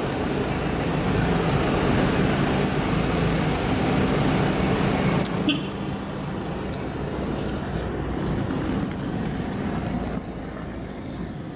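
Idling road-vehicle engine with steady traffic noise. The sound drops abruptly a little over five seconds in, to quieter, steadier traffic noise.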